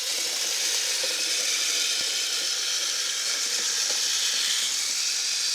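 Kyosho Blizzard radio-controlled snowcat running through fresh snow: a steady high hiss and whir from its electric drivetrain and tracks.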